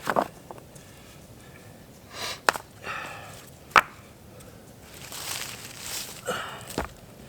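Dry sticks and brush snapping with rustling in between: four sharp cracks spread irregularly over several seconds.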